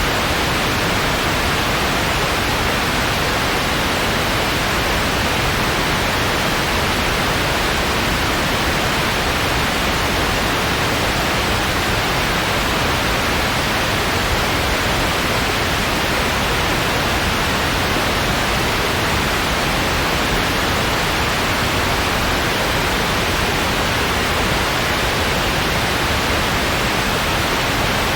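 Steady synthetic white noise: an even, unbroken hiss with no changes.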